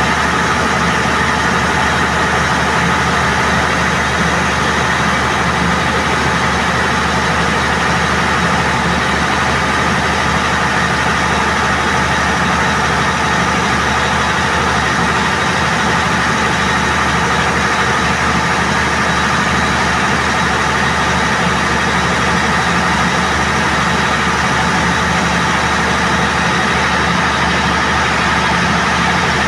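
Perkins 2306 diesel generator set running under electrical load at constant speed: a loud, even engine drone that holds steady in pitch and level throughout.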